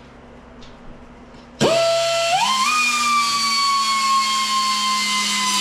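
A small power drill starts up with a loud, steady whine about a point and a half in, stepping up in pitch twice as the trigger is squeezed, then slowly dropping in pitch as it bites into the steel, drilling out a spot weld on the car's sub rail.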